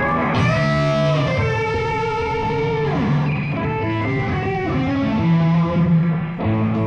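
Rock music with electric guitar playing held, sustained notes over bass guitar.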